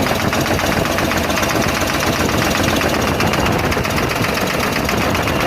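Nissan Quester CWA 280 truck's diesel engine running steadily with a fast, even clatter.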